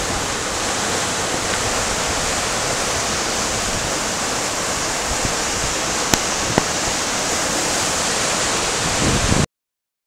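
Steady rush of a flooded river's fast-moving water, with two short clicks about six seconds in; the sound stops abruptly near the end.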